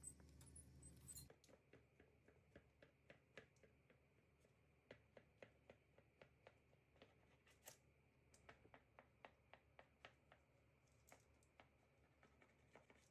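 A faint low hum stops about a second in. Then come soft, crisp clicks and crackles, a few a second, as a knife cuts through a baked brioche's almond-topped crust.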